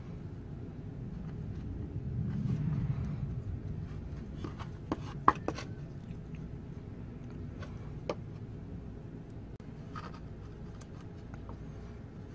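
Handling noise as hands work a paracord-wrapped knife handle and a small plastic compass on a carabiner: soft rubbing and a few sharp clicks, the loudest about five seconds in and one more near eight seconds, over a low steady hum.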